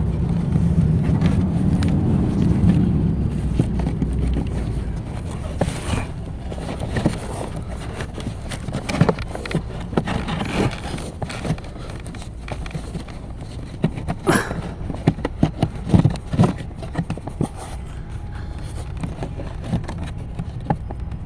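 Scattered sharp clicks and knocks of hands working on the car's cabin-filter area, over a steady low hum. The hum is fuller for the first few seconds, and the clicks come in clusters, the loudest about fourteen seconds in.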